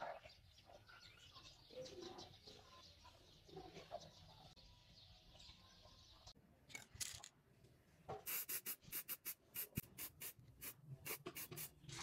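Faint background with scattered bird chirps, then a quick run of short, sharp bursts, about four a second, for the last few seconds.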